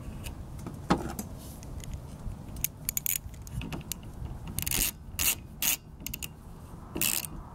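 Small socket ratchet clicking in several short runs as the 10 mm nut holding the rear wiper arm onto its spline shaft is run down. A single knock about a second in.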